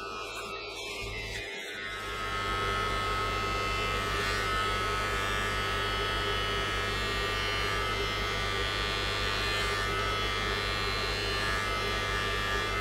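Braun BT5265 electric beard trimmer running with a steady buzzing hum while trimming hair at the back of the head, growing louder about two seconds in.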